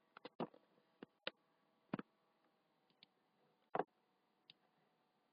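Computer mouse clicks: a quick cluster of clicks at the start, then single or paired clicks at irregular gaps, over near silence.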